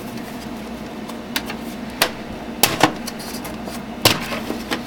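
Plastic front bezel of a Cooler Master Elite 360 computer case being pulled off, its snap-in clips popping loose with a handful of sharp clicks, the loudest about two and a half and four seconds in.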